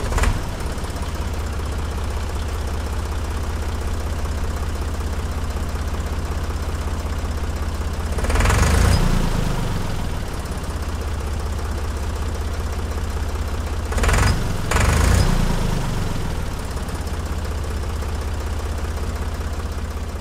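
Tractor engine running at a steady idle with an even low knocking beat. It grows louder twice for a second or two, about eight seconds in and again about fourteen seconds in.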